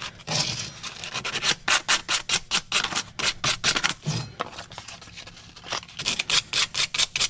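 Sandpaper rubbed by hand on a steel pipe wrench in quick back-and-forth strokes, about four a second. The strokes ease off a little past the middle and pick up again, slightly faster, near the end.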